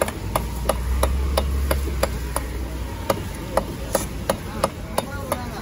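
Cleaver chopping a fish on a wooden log chopping block, sharp knocks about three a second in a fast steady rhythm.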